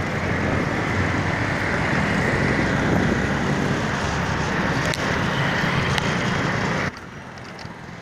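Loud, dense road traffic noise heard while moving through city traffic, with engines and rumble mixed together. About seven seconds in, it drops abruptly to a much quieter traffic hum.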